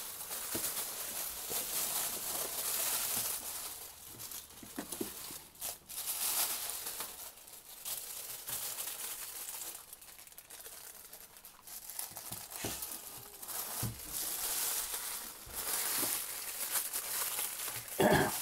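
Plastic packaging bag crinkling in irregular bursts as it is pulled and peeled off a boxed hot air soldering station.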